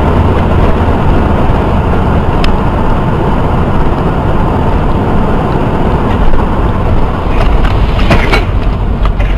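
Loud, steady noise of a vehicle on the move, heaviest in the low end, like road and wind noise on a dashcam microphone, with a few short sharp knocks about eight seconds in.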